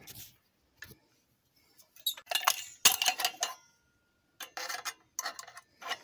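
Sheet-steel microwave parts, a mounting bracket and the finned magnetron, being pried apart by hand: a series of short metallic clinks and scrapes in several clusters, the sharpest clank about three seconds in.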